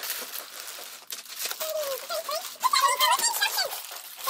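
Fast-forwarded voices chattering at a high, squeaky pitch in short gliding bursts, over the rustle of plastic parts bags being handled.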